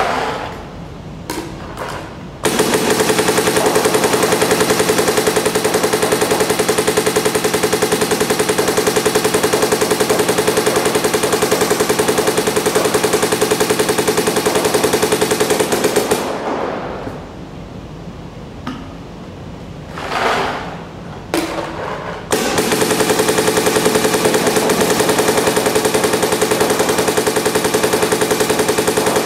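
MacDev Clone 5 electronic paintball marker firing long, rapid strings of shots on compressed air from a high-pressure tank regulated to about 450 psi. There are two strings: the first runs from about two seconds in to about sixteen seconds, and the second starts about twenty-two seconds in. A break between them holds a few small knocks.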